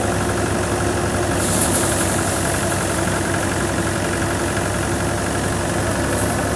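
Tractor-driven Ajmer paddy thresher running steadily with rice sheaves being fed in: an even engine drone with the threshing drum's hum.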